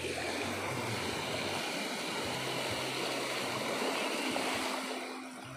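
Fast water rushing down a narrow concrete channel, a steady churning rush with white water breaking and splashing around a child sitting in the flow. It eases off slightly near the end.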